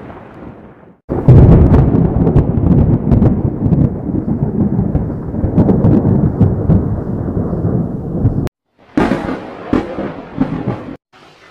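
Thunder: a loud clap about a second in that rolls on with crackling for about seven seconds, then cuts off abruptly. After a brief gap, a shorter, quieter peal of thunder follows and also stops suddenly.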